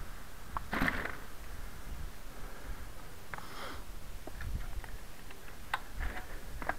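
Knobby tyres of a KMX Cobra pedal trike rolling over dry leaf litter and twigs on a dirt path: scattered crackles and clicks over a low rumble, with a short rustling bump about a second in.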